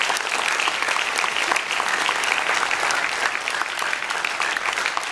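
Audience applauding: many hands clapping at once in a steady, dense round of applause.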